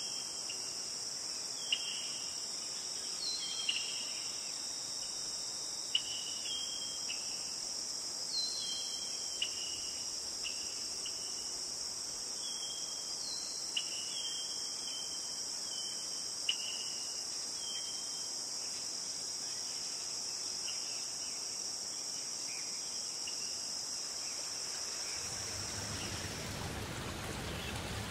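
Steady high-pitched insect chorus with short chirps and a few sharp clicks over it. About two and a half seconds before the end it gives way to a broad rushing noise of water.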